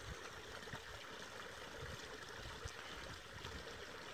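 Pond overflow water running steadily and faintly over the stones of a rock-lined outlet channel: the pond is full and spilling out through the cut.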